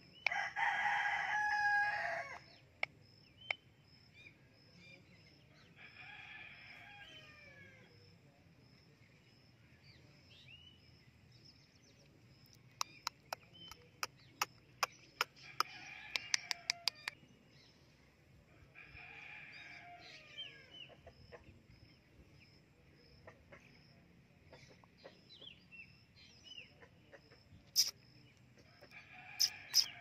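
Rose-ringed parakeet calling at its reflection: a loud, drawn-out call for the first two seconds, then several softer bursts of chattering calls. A quick run of sharp clicks comes around the middle.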